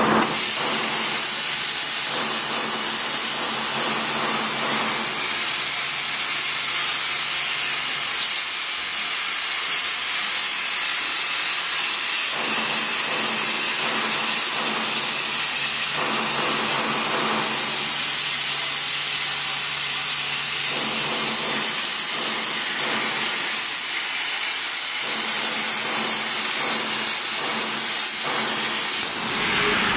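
A 100 A CNC plasma cutting torch cutting steel plate: a loud, steady hiss of the plasma arc and its air jet. A low hum comes and goes every few seconds underneath.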